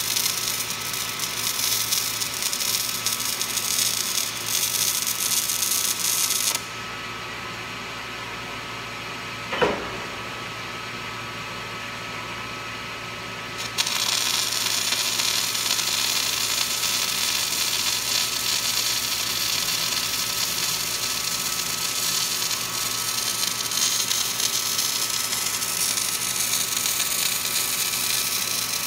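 Electric arc welding on structural steel: the steady crackling hiss of the arc. It stops about six and a half seconds in and strikes up again about seven seconds later, with one brief sharp sound in the pause.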